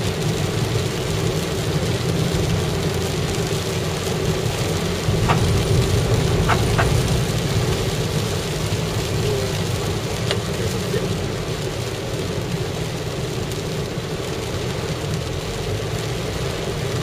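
Car driving on a wet road, heard from inside the cabin: steady engine and road rumble with the hiss of tyres on wet tarmac and rain. A few short clicks come midway.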